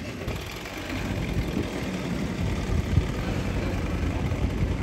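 Street go-kart engine running with a low, uneven rumble that grows a little louder about a second in.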